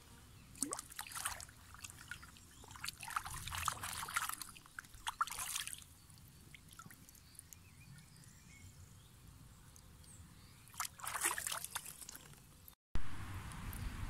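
Shallow pond water sloshing and trickling in a few short, irregular bursts, as it is stirred by hands and boots working at the edge of the liner.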